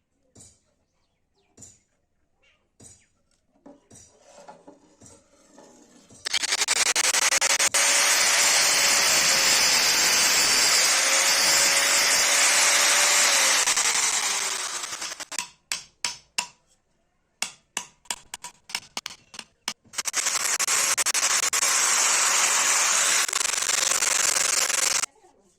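An electric power tool, a motor whine under a loud hiss, running in two stretches: the first dips in pitch, then falls away as the motor winds down. Between the stretches there is a quick run of sharp clicks and taps, with lighter clicks before the first one. The second run cuts off suddenly.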